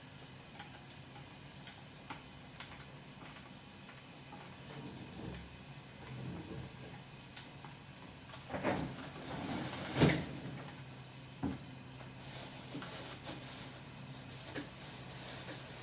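Scattered light clicks and knocks of hands handling small hard parts and tools while fitting an electrical socket, with the sharpest knock about ten seconds in. Underneath runs a faint steady hum.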